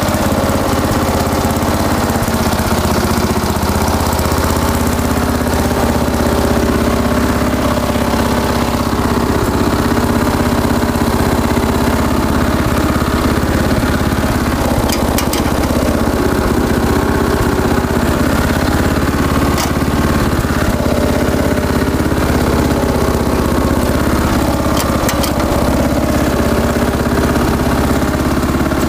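MTD White LT11 ride-on mower's petrol engine, freshly started, running steadily at an even speed.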